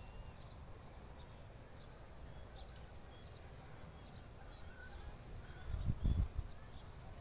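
Faint outdoor ambience: a low rumble of wind on the microphone, swelling about six seconds in, with scattered faint high chirps.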